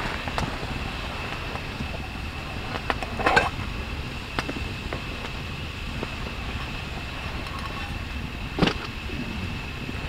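A small metal tin being handled: a few light clicks and knocks as its lid is pried off and the char cloth taken out, over a steady background hiss with a faint high tone.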